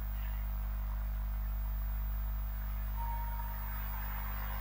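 Steady low electrical hum, with a short faint high tone about three seconds in.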